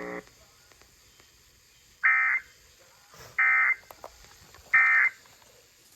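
Emergency Alert System end-of-message data bursts: three short, harsh digital tone bursts about 1.3 seconds apart, the code that closes an Amber Alert broadcast.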